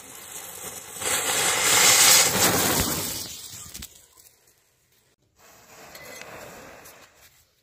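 Burning matchstick heads and firecracker flaring with a loud, crackling hiss that swells about a second in and dies away within a few seconds; a fainter crackle follows after a short pause.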